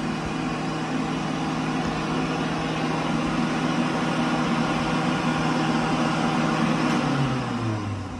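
World Dryer Model A push-button hand dryer running with a loud, steady motor hum and rush of air. About seven seconds in, the motor winds down and its pitch falls as the dryer shuts off. This is a faulty, overheating unit that is throwing out sparks.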